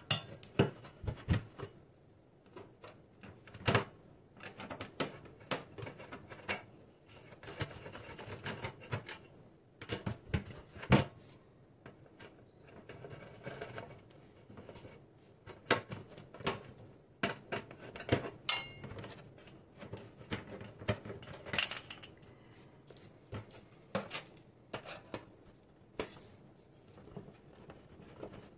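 Steel screwdriver tip scraping and tapping against the stainless-steel cover of an electric boiler's heating-element housing while the cover is worked loose: irregular metallic clicks, taps and short scrapes.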